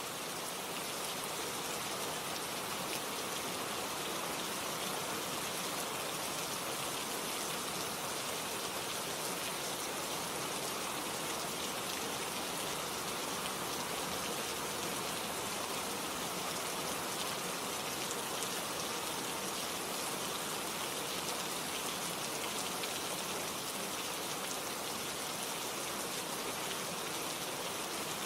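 Steady rain falling: an even, unbroken hiss with scattered small drop ticks.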